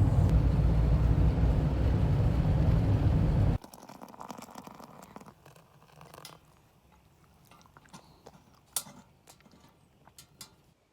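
Steady low road and engine rumble inside a moving campervan, cutting off suddenly about three and a half seconds in. After it come only faint scattered clicks and taps.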